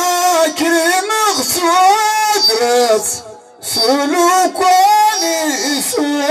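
An elderly man sings a line of Amazigh tandamt verse solo into a microphone, amplified over loudspeakers. He holds wavering, drawn-out notes and breaks briefly for breath about three seconds in.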